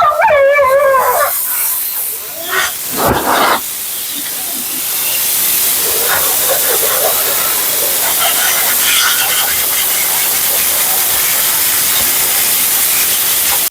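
A husky's howling vocal trails off in the first second. Then a high-velocity pet dryer blows a steady rush of air that gets louder about four to five seconds in, blowing out the dog's thick double coat.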